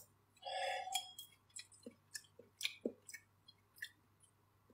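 Faint eating sounds: a short slurp of broth about half a second in, then scattered soft clicks and mouth noises of chewing.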